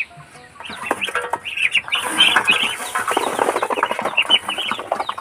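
A group of ducklings peeping nonstop in quick, short, falling chirps while they crowd a metal feed pan, with many small clicks of bills pecking at the feed. The peeping starts about a second in.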